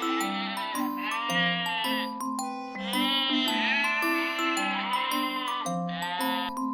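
Sheep bleating several times, each call quavering, over a light marimba and glockenspiel tune.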